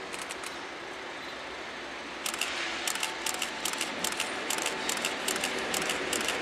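Freight train hauled by an EF81 electric locomotive approaching. About two seconds in, its wheels start clicking over the rail joints and points, a few sharp clicks a second that grow louder as it nears.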